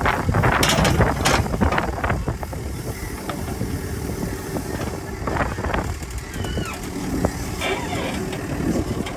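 Backhoe's diesel engine running steadily while it digs, with a cluster of sharp knocks and scraping in the first second or two as the bucket works the soil.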